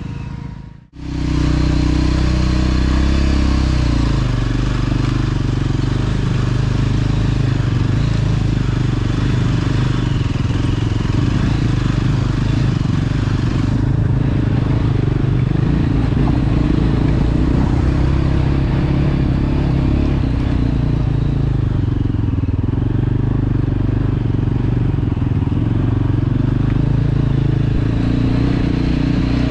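Yezdi Adventure's single-cylinder motorcycle engine running steadily at low revs, heard close up. The sound drops out briefly about a second in.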